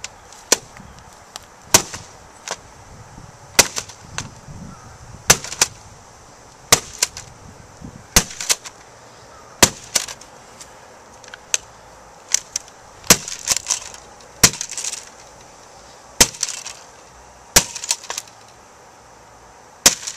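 Spiked metal mace smashing an old Toshiba laptop: about twenty sharp blows, roughly one a second and sometimes in quick pairs, cracking the plastic case and breaking the screen.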